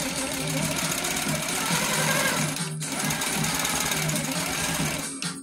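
Baby Lock Coronet longarm quilting machine running, its needle stitching through the quilt, over background music.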